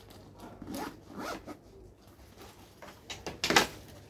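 Zipper on the main compartment of an Arctic Hunter Oxford-fabric backpack being pulled open in several short zips, the loudest near the end.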